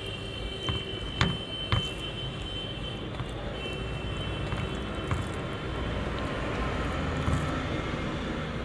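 Hand-eating sounds: rice and chicken curry being mixed by hand on a steel plate, with a few sharp clicks, the loudest two between one and two seconds in, over a steady low background rumble.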